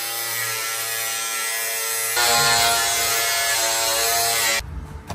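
Makita cordless angle grinder running at speed as its disc cuts through a carpet-covered plastic interior trim panel. About two seconds in its steady whine steps up in pitch and gets louder, and near the end it stops abruptly.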